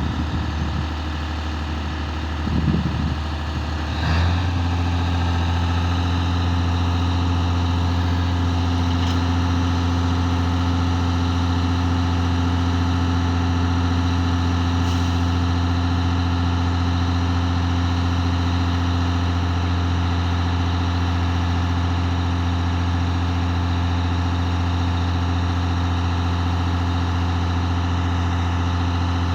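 A crane's engine running steadily with a deep, even hum. About four seconds in it steps up louder and holds there, after a few brief low knocks.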